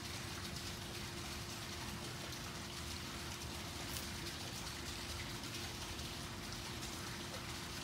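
Steady outdoor background noise: an even hiss like light rain, with a faint steady hum underneath.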